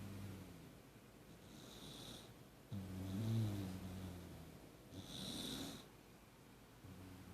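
Beagle–Jack Russell mix snoring lightly in slow, even breaths. Each breath has a low, buzzing snore, about three seconds in and again near the end, and an airy, hissing breath in between.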